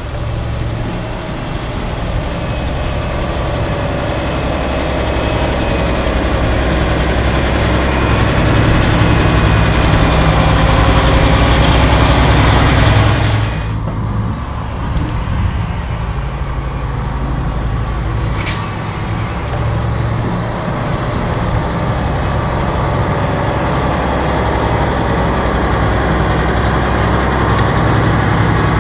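Diesel semi-trucks hauling trailers pass close by at low speed, their engines running and growing louder over the first dozen seconds before cutting off suddenly. Another truck's engine carries on after that, with a brief sharp high sound about 18 seconds in.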